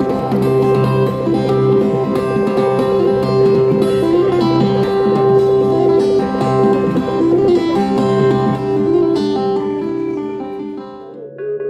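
Acoustic guitar played lap-style, laid flat across the knees, by a street busker: a run of ringing plucked notes with a few sliding pitch bends. The playing drops away near the end.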